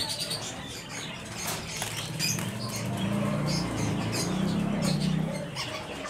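Caged birds calling: scattered short high chirps throughout, with two long, low pigeon coos in the middle.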